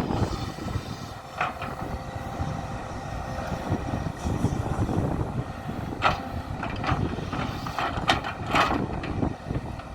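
A JCB JS175W wheeled excavator's diesel engine running steadily under load while it grades, with a faint steady whine. A few short, sharp knocks or scrapes come through, about one and a half seconds in, at about six seconds, and twice near the end.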